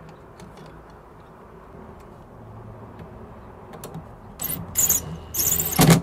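Low handling sounds, then from about four and a half seconds in several short bursts of a cordless brushless drill driving screws into a steel electrical box, fastening a mud ring over a switch.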